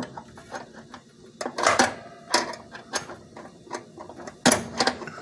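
Irregular metallic clicks and knocks from an air fryer's rotisserie spit and its drive, with the loudest about a second and a half in and again near the end.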